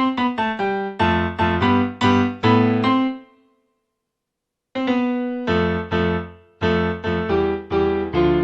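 Casio CTK-4200 arranger keyboard being played with one of its built-in voices: a quick run of struck chords and notes, each dying away. The playing stops about three seconds in, falls silent for about a second and a half, then starts again with more chords.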